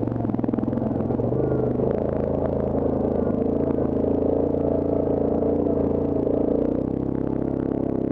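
Yamaha Grizzly ATV engine running steadily while the quad crawls over a rocky trail, with some rattling clatter over the engine note. About seven seconds in, the engine note drops a little lower.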